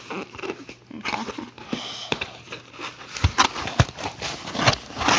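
Plastic and bubble-wrap packaging being rustled and crinkled by hand, with irregular crackles and a couple of sharp handling knocks.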